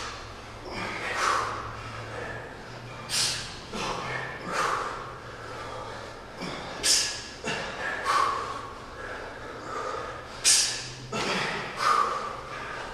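Sharp, hissing exhalations from several people lifting kettlebells, a short forceful breath on each rep, about ten in all at irregular intervals as the lifters work out of step.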